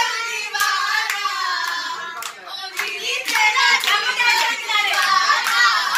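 Group of girls and young women singing together and clapping their hands along, about two claps a second.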